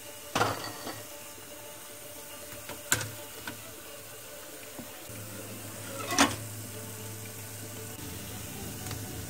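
Hot oil sizzling steadily in a wok as rose cookies fry, broken three times by sharp metallic clinks of a steel slotted ladle against the wire-mesh strainer, the third the loudest. A low hum joins about halfway through.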